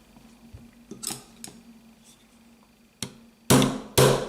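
Small hammer tapping a roll pin into a Smith & Wesson M&P pistol frame: a few light clicks, then a tap about three seconds in and two hard, briefly ringing strikes about half a second apart near the end.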